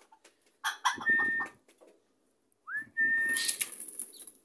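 A person's whistled feeding call to chickens: a short whistle about a second in, then a longer note that glides up and holds steady, with a brief hiss after it. It is the call the hens have learned to link with being fed.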